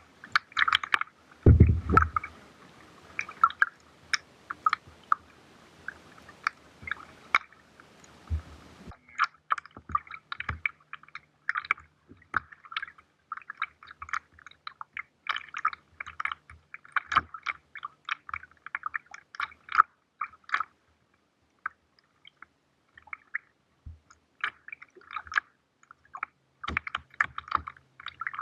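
Kayak paddling: a steady run of short, irregular water splashes and drips from the paddle blades, muffled and close. A single low thump comes about a second and a half in.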